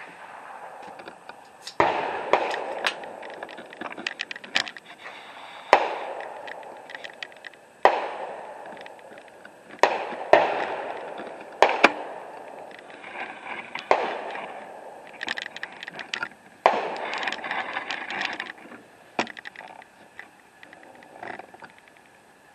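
Gunfire from rifles on a shooting range: about fifteen sharp shots at irregular intervals, some in quick pairs, each followed by a short echoing tail.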